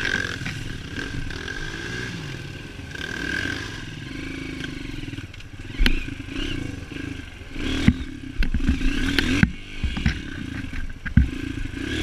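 Dirt bike engine running at low speed, ridden on a punctured rear tyre, with sharp knocks and clattering from about six seconds in as the bike bumps and scrapes over the rough ground and brush.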